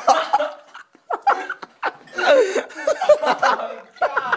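Several people laughing and exclaiming, in short bouts with brief pauses.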